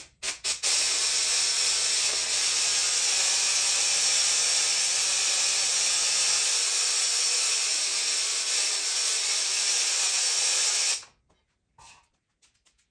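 Compressed air hissing from a cheap Harbor Freight powder coating gun spraying powder: a few quick blips of the trigger, then a steady hiss for about ten seconds that cuts off suddenly near the end.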